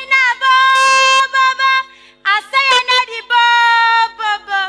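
A high-pitched voice singing, holding long notes with short breaks between phrases.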